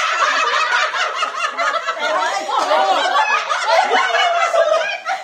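A small group of people laughing together, several voices overlapping.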